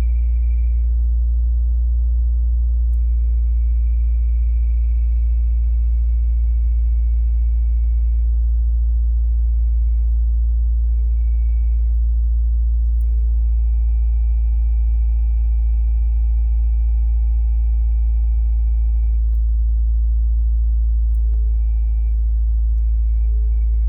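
2017 Subaru WRX's turbocharged flat-four engine idling with a low steady rumble, over which a high-pitched squeal comes and goes several times in stretches of about one to six seconds: the squeal that appears when the clutch pedal is depressed.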